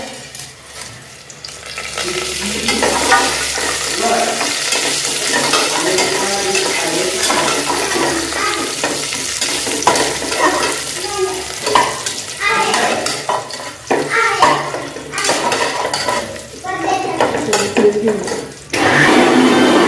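Onion and whole spices sizzling in hot oil in a pressure cooker pot while a spoon stirs and scrapes the metal. About a second before the end a louder steady machine hum starts.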